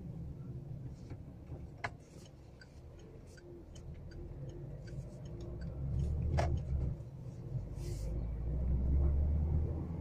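Low rumble of a car driving through town streets, heard from inside the cabin. It swells about six seconds in and again near the end, with a few faint clicks.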